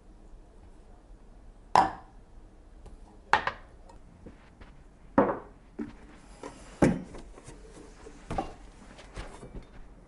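Five sharp knocks about a second and a half apart, with smaller taps between them: household handling sounds of wood and glass.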